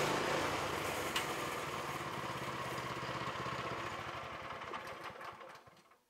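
Small gasoline engine of a Woodland Mills HM122 portable bandsaw mill running steadily, then dying away near the end.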